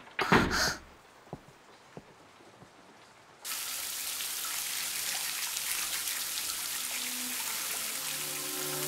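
Shower running: a steady hiss of water spray that starts suddenly about three and a half seconds in, after near quiet broken by a brief noise at the very start. A few soft held musical notes come in near the end.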